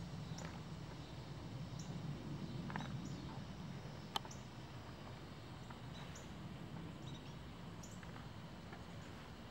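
Outdoor background of a steady low rumble with small birds chirping, short high chirps scattered through it. A single sharp click comes about four seconds in.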